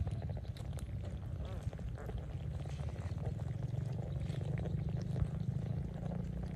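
A heap of live catfish writhing and flopping on wet grass: scattered wet clicks, slaps and crackles over a steady, low, purring rumble.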